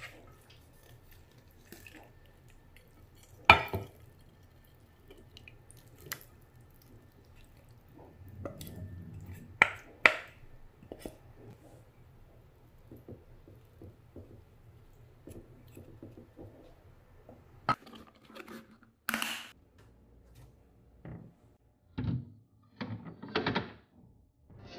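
A glass food storage dish being handled and filled: scattered knocks and clinks of glass, with a soft scraping, rustling patch as dressed shredded chicken and vegetables are spooned in with a wooden spatula. A quick run of knocks comes near the end.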